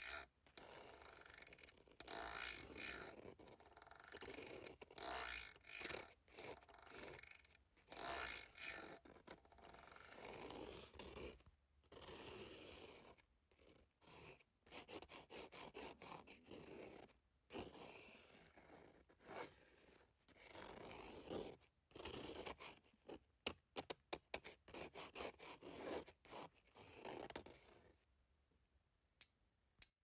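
Drawing on paper: a dark drawing stick scraping across the sheet in short, irregular strokes with brief pauses between them, then a run of quick, sharp taps near the end.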